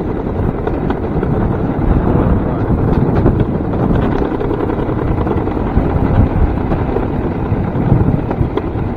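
Wind buffeting the microphone over the steady rumble of a small electric railcart's wheels rolling on old rails, with scattered light clicks.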